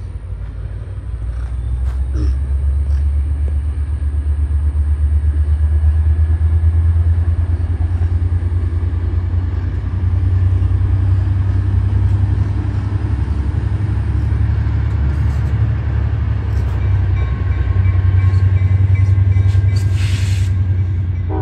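Trinity Railway Express commuter train passing over a river bridge: a steady low rumble that swells and eases, with a brief hiss near the end.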